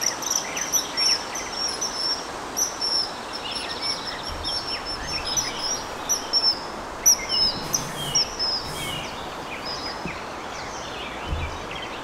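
Male common kingfisher giving its alarm: a fast run of short, high, piping calls, several a second, that thins out after about nine seconds. Fainter chirps of other birds sit beneath.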